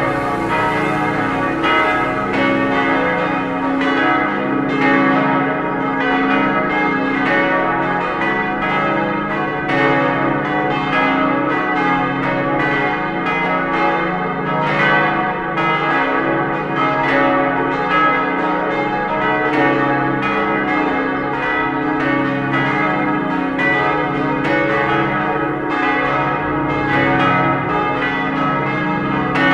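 Church bells of a five-bell peal (strike tones D♭, E♭, G♭, A♭ and B♭) ringing together, strike after strike overlapping in a steady, continuous jangle of held, ringing tones.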